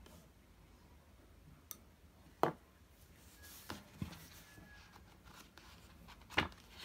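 Quiet room with about five sharp taps and clicks of objects being handled on a tabletop, the loudest about two and a half seconds in and near the end.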